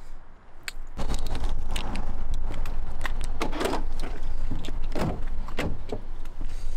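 A car door being opened, with clicks and knocks from the handle and latch, over a loud low rumble on the microphone that sets in about a second in.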